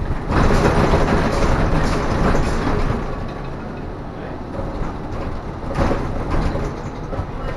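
Cabin noise of a trolley-style tour bus under way: engine and road noise, louder for the first few seconds and again briefly near the end.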